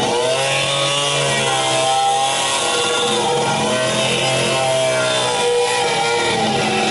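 Straight die grinder with a buffing wheel running against the edge of a steel oil pan, its pitch wavering up and down as the wheel is pressed on and eased off.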